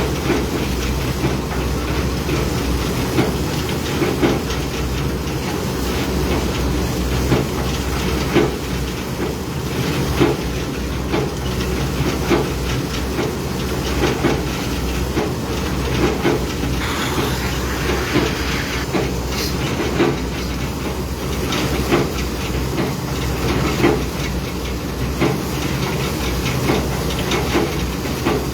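Heavy diesel construction machinery running steadily: a constant low engine hum with frequent clanks and rattles.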